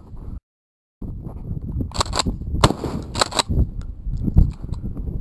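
A quick string of shotgun shots about two seconds in, several blasts within a second and a half, with fainter clicks after. The sound cuts out completely for about half a second near the start.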